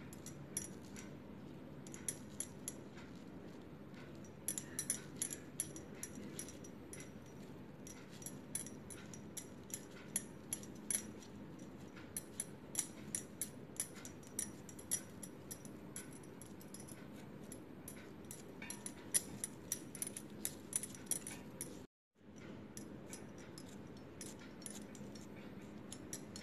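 Wet hands pressing and shaping soft semolina dough, making many faint irregular sticky clicks over a low steady room hum. The sound cuts out briefly near the end.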